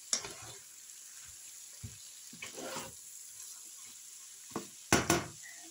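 Carrots, mushrooms and scrambled egg sizzling in a frying pan as a spatula stirs them up from the bottom, with scattered scrapes and a longer scrape near the middle. About five seconds in, the spatula knocks sharply against the pan twice.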